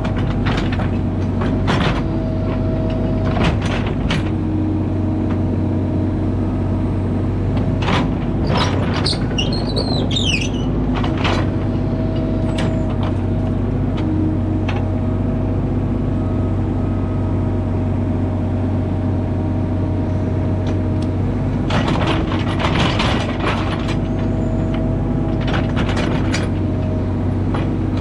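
Mini excavator's diesel engine running steadily under load, with a constant hydraulic whine. The steel bucket scrapes and knocks through clay and dirt in clusters, about eight seconds in and again past twenty seconds.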